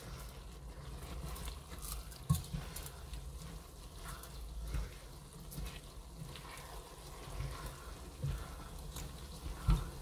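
A plastic spatula stirring raw rice into chicken pieces and vegetables frying in a pot, with soft scraping and a faint sizzle. A few light knocks of the spatula against the pot, the clearest about two seconds in and just before the end.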